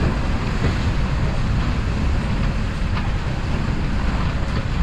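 Strong wind buffeting the microphone as a steady low rumble, over the rush of rough sea around a sailing catamaran.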